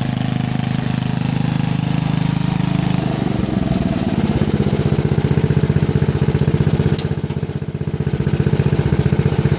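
Craftsman riding mower's engine running steadily, then dropping to a lower, slower pulsing beat about three and a half seconds in. Two brief clicks near the end.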